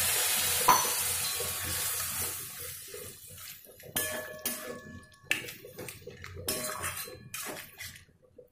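Water poured into a hot metal kadhai of fried spiny gourd and masala, hissing loudly and dying down over about three seconds. From about four seconds in, a metal spatula scrapes and knocks against the kadhai as the curry is stirred, each stroke ringing briefly.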